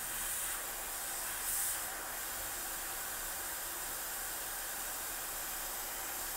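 Hot air rework station blowing a steady hiss of air onto a replacement surface-mount capacitor, reflowing its solder onto the circuit board. The hiss swells briefly twice in the first couple of seconds.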